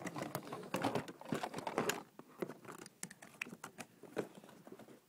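Handling noise: a quick, irregular run of small clicks and taps from hard objects being moved and set down close to the microphone, busiest in the first two seconds and then sparser.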